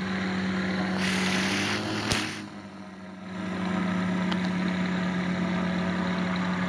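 Engine running with a steady, even-pitched hum. About a second in there is a rush of hissing noise, broken by a sharp click near two seconds.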